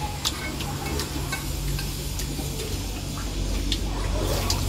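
Eating at the table: a few light clicks of spoons against steel bowls, over a low steady hum.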